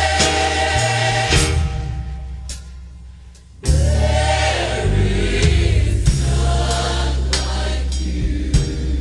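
Gospel choir music, voices singing over instruments with a heavy bass. The music fades down over a couple of seconds, then a new song comes in loudly just under four seconds in.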